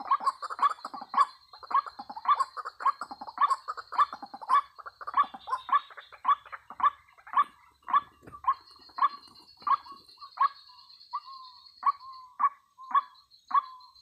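White-breasted waterhen calling: a rhythmic run of short, repeated calls about two a second, spacing out a little in the second half.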